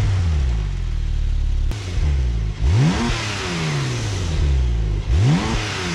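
Exhaust of a Porsche 911 Turbo S (991.2) and its 3.8-litre twin-turbo flat-six, revved at a standstill in three quick blips: one right at the start, one about halfway and one near the end, each rising sharply in pitch and settling back down.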